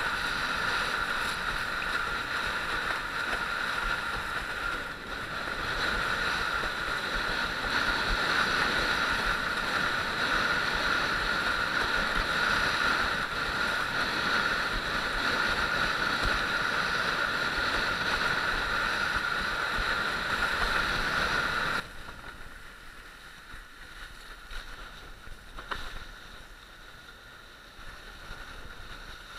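Steady rushing of wind and water past a windsurfer sailing on choppy water. About two-thirds of the way through it cuts suddenly to much quieter, uneven splashing and lapping of water.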